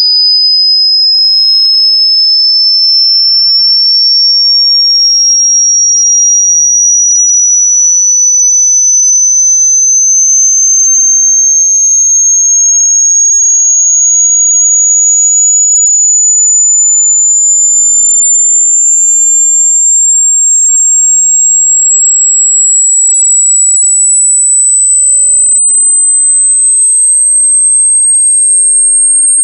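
A loud, single pure electronic tone, very high-pitched and unbroken, climbing slowly in small steps the whole time: a synthesized sine-tone sweep made to be painful to hear.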